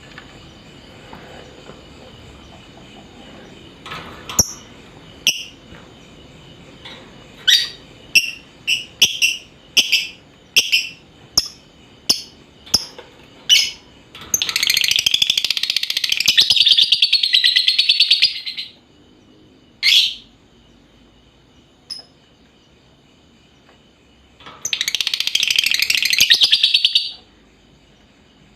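Lovebirds calling: a string of sharp, high chirps, then two long stretches of dense, shrill chattering, the first about four seconds long and the second about two and a half.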